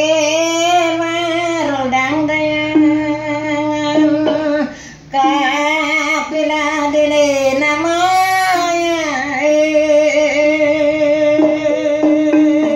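A woman singing long, wavering held notes over a gabang, the Tausug bamboo xylophone, whose keys are struck with mallets. The voice breaks off briefly about five seconds in.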